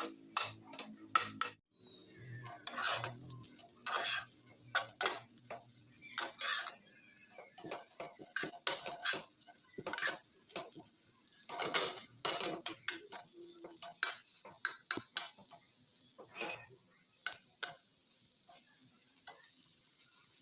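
Cutlery clinking and scraping against a dish of Yippee noodles, a string of irregular sharp clicks and knocks.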